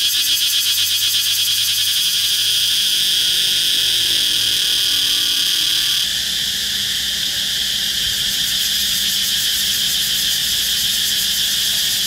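Cicada calling: a loud, steady, high-pitched buzz, finely pulsing in its first few seconds.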